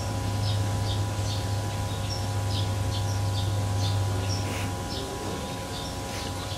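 Small birds chirping, short high calls a few times a second, over a steady low mechanical hum.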